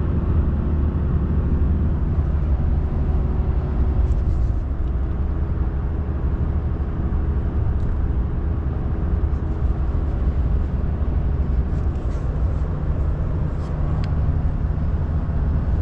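Pickup truck driving on the road with a trailer in tow: a steady low rumble of engine and tyre noise, heard from inside the cab, with a few faint ticks.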